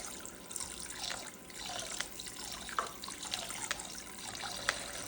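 Water running steadily from a small toy sink's faucet into its basin, with a few light clicks as things are handled in the sink.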